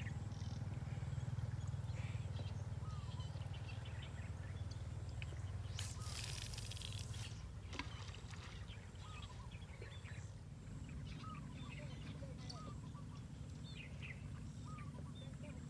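Birds chirping outdoors, short calls scattered throughout over a steady low rumble, with a brief hiss a little after six seconds in.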